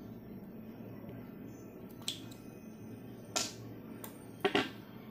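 Handling of a small plastic bottle of glitter paint: a few light clicks and knocks as the bottle and its cap are worked open, about four in all, over a steady low hum.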